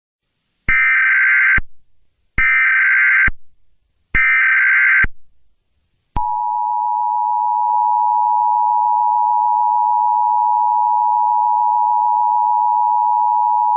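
Mock Emergency Alert System tornado warning: three short, shrill bursts of SAME header data, each under a second long and about a second apart, then, about six seconds in, the steady two-tone EAS attention signal, which holds without a break.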